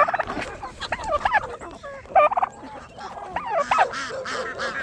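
A mixed flock of farm poultry calling, many short overlapping calls at once.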